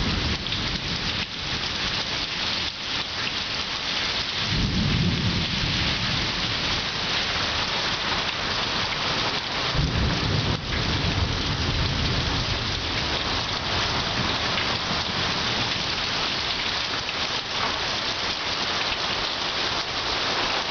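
Heavy thunderstorm rain falling steadily, with low rumbles of thunder swelling twice, about four and a half seconds in and again around ten seconds.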